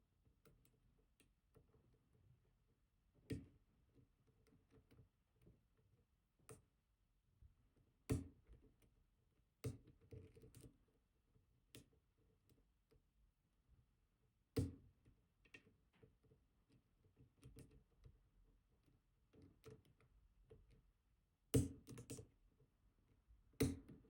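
Scattered small metallic clicks and ticks of a steep hook pick working the barrel-driver pins in the main stack of an ASSA Twin Combi high-security lock under heavy tension, with near silence between them. The clicks come irregularly, a few louder than the rest, with a quick cluster near the end.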